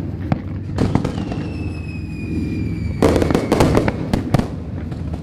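Fireworks display: aerial shells bursting with sharp bangs, one a little under a second in and then a rapid run of crackling bangs about three seconds in, the loudest part. A thin high whistle slowly falls in pitch through the middle.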